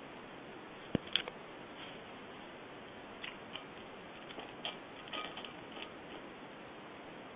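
Ice cubes clicking and rattling: one sharp click about a second in, then scattered light clicks, over a steady faint hiss.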